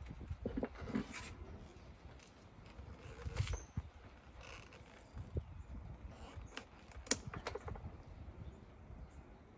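Scissors snipping small branches off a potted succulent, a few sharp clicks among soft rustling of gloved hands and leaves.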